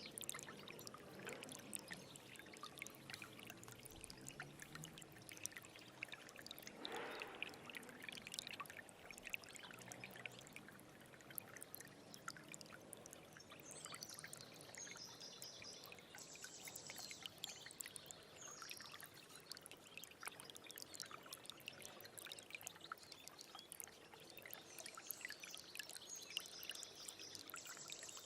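Stream water flowing and trickling softly, with many small splashes and drips.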